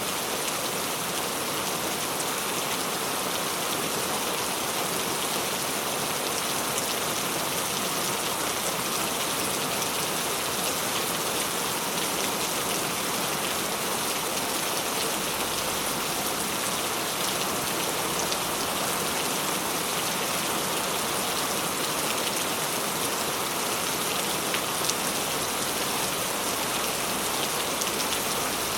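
Steady rainfall, an even hiss with the patter of drops hitting a surface.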